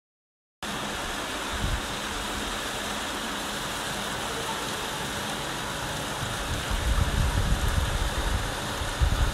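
A steady rushing hiss cuts in abruptly after a moment of silence. Low rumbling bumps on the microphone come through in the second half.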